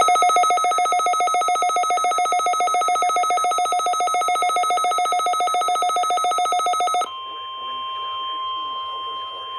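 Emergency Alert System alert tone on a radio broadcast: a loud alarm tone pulsing about ten times a second for about seven seconds, then switching abruptly to a quieter steady tone.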